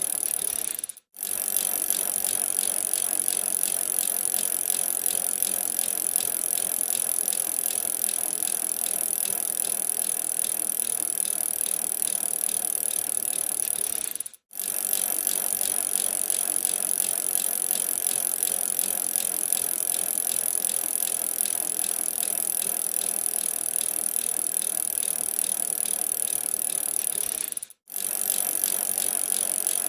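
Bicycle being ridden: a steady mechanical running sound with fine, rapid clicking, broken by three brief cuts to silence where the recording loops.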